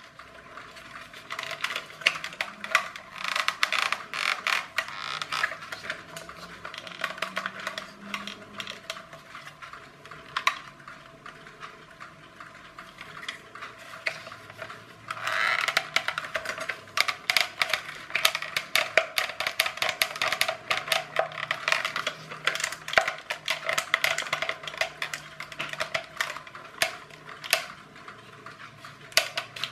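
Plastic body of a clockwork toy car being squeezed and pried apart by hand: hard plastic clicking, creaking and knocking in irregular small bursts, busiest about halfway.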